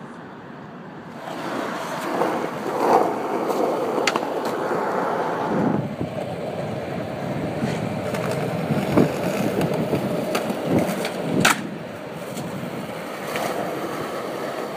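Skateboard wheels rolling over a concrete sidewalk with a steady rough rumble starting about a second in. Several sharp clacks of the board cut through, the loudest about eleven and a half seconds in.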